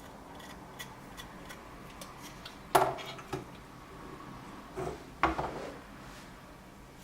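Small hard parts or tools being handled and set down on a workbench: light ticks, then two sharper clicks about two and a half seconds apart.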